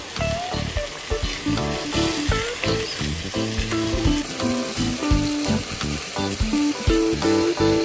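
Chicken in green masala sizzling as it fries in a pot while its liquid cooks off, with a spatula stirring through it, under background music playing a tune.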